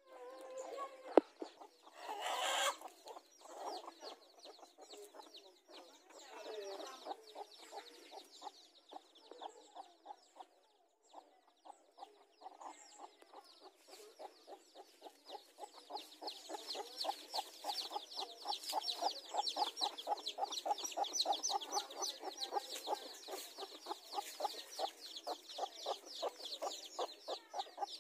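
A brood of chicks peeping in fast, overlapping high chirps while a mother hen clucks, the peeping growing busier about halfway through. A sharp click sounds about a second in.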